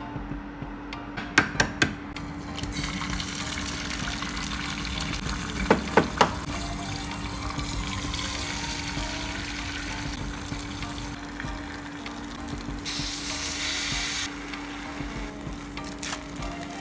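Eggs frying in hot oil in a pan, sizzling steadily, with sharp taps of eggs being cracked on the pan about a second and a half in and again about six seconds in. A steady low hum runs underneath.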